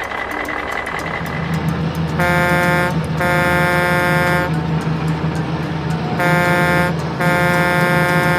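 Truck sound effect: a diesel engine running steadily, with an air horn honking twice as a pair, a short blast then a longer one, and the pair repeated.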